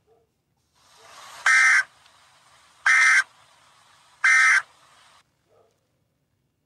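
Emergency Alert System end-of-message code: three short, harsh digital data bursts about a second and a half apart, over faint static.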